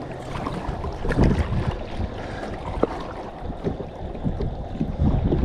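Heavy wind buffeting the microphone on an open fishing boat, with water slapping the hull; the gusts swell about a second in and again near the end, and there is one sharp click partway through.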